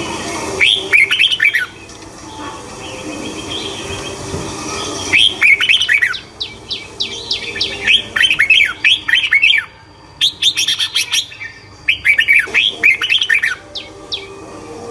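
Songbird singing in repeated bursts of rapid, high chirping notes. Each phrase lasts one to three seconds and is followed by a short pause.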